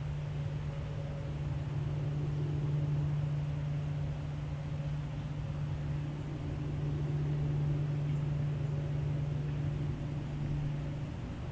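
A steady low mechanical hum, like an engine running, with a rumble beneath it.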